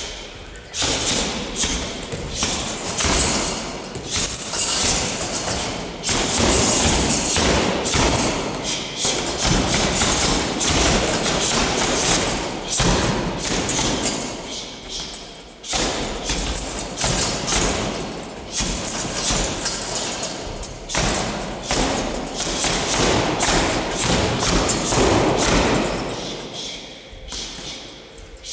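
Gloved punches, knees and kicks thudding against hanging leather heavy bags in rapid combinations, with short pauses between bursts.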